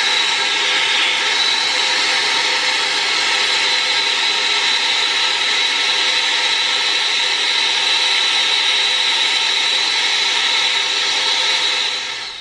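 Brazing torch burning steadily with a hissing rush, a faint high whistle in it, as it heats a 3/4-inch copper refrigerant line joint; it fades out near the end.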